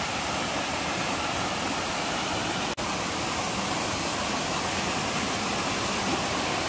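Small waterfall pouring over rock ledges into a pool: a steady rush of falling water.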